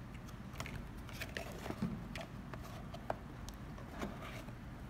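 Small cardboard box being handled on a wooden table: scattered light taps, scrapes and rustles of card.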